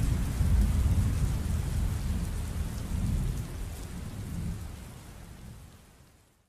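Thunderstorm: steady rain with a deep thunder rumble underneath, fading out gradually over the last few seconds.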